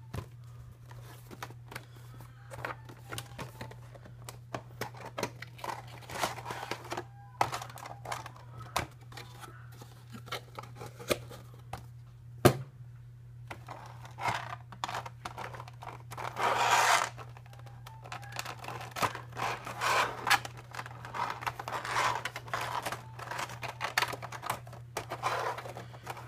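Cardboard box and clear plastic packaging tray being handled and opened: irregular rustling, scraping and crinkling, with one sharp click about halfway through. A steady low hum sits underneath.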